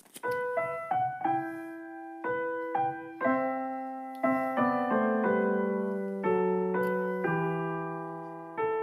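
Solo piano intro of a karaoke backing track: slow single notes and chords, each struck and left to fade, with a new one every half second to a second.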